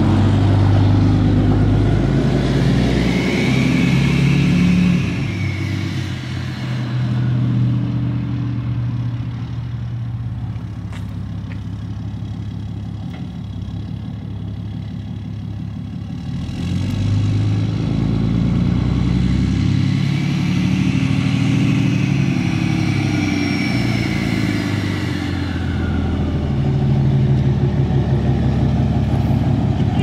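Cummins diesel pickup engine running under load as the truck is driven. It pulls twice: it is loud at the start, eases off in the middle, then builds again, and each pull carries a high whine that rises and then fades away.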